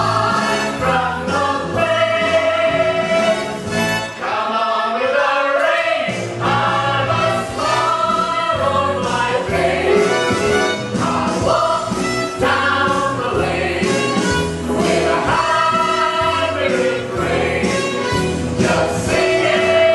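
Stage musical ensemble of men and women singing together in chorus, a full choir sound that runs without a break.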